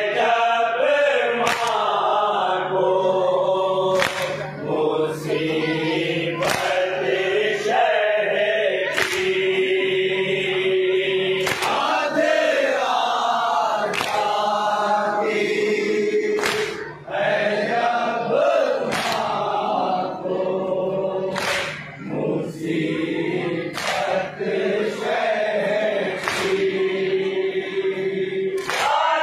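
A group of men reciting a nauha, an Urdu mourning lament, in unison into a microphone. A sharp slap of chest-beating (matam) lands about once every second and a quarter, keeping time with the chant.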